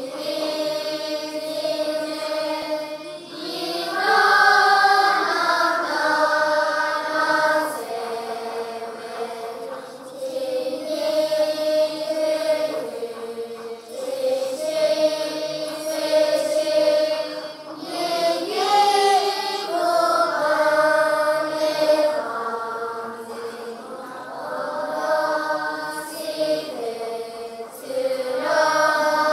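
A large group of schoolchildren chanting a Tibetan Buddhist morning prayer together in unison, in held, sung phrases of a few seconds each that swell and fall.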